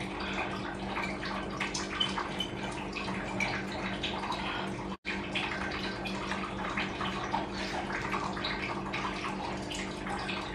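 People eating instant noodles with forks from ceramic bowls: scattered small clicks and scrapes of forks on the bowls and slurping, over a steady hum. The sound cuts out for an instant about halfway.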